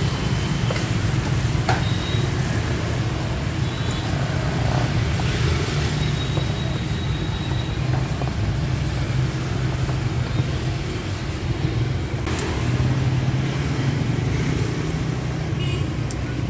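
Steady street traffic noise, a continuous low rumble of passing vehicles, with a few light knocks.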